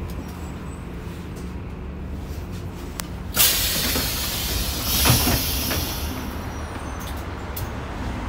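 Volvo 7700 city bus's diesel engine running low and steady, then about three and a half seconds in a sudden loud hiss of compressed air as the bus halts and its pneumatic doors open, dying away over a couple of seconds.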